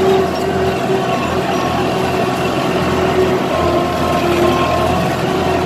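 Tractor engine running steadily while it tows a wheeled cultivator across tilled soil, heard close up from the tractor itself. It holds one even pitch that dips slightly now and then.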